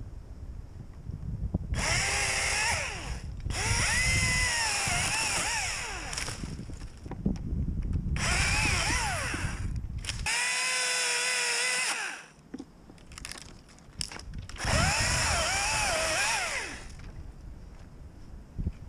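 Echo DCS-2500T battery top-handle chainsaw running in five bursts of a few seconds each, cutting branches. Its motor and chain whine dips and recovers in pitch as the chain works through the wood. In the burst about ten seconds in, it holds a steady pitch, and there is a low rumble between the bursts.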